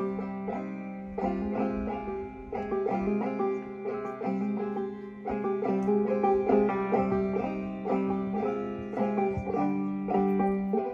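Banjo played clawhammer style: a steady run of quick plucked notes over a ringing drone string.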